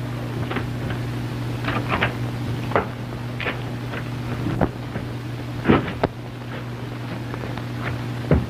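Irregular knocks and scrapes of a stone wall being struck by hand with a hard object, about eight blows at uneven intervals, over the steady hum and hiss of an early sound-film soundtrack.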